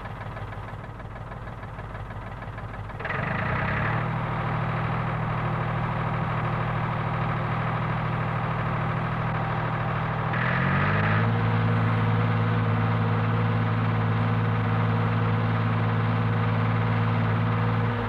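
David Brown Selectamatic tractor engine running at varying speed: it runs quietly at first, then gets louder and shifts pitch about three seconds in and again near eleven seconds, each change with a brief higher hiss. The revs are being changed to show that the hydraulic lift holds the implement at the same height at high or low revs.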